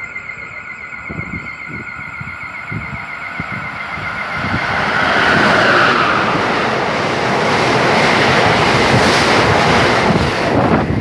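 Amtrak Northeast Regional train led by an ACS-64 electric locomotive passing through the station at speed. A high ringing fades in the first second, then the rushing noise of the train builds from about four seconds in and stays loud.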